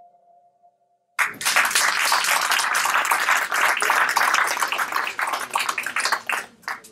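A faint held music note fades out, then an audience breaks into applause about a second in, which dies away near the end.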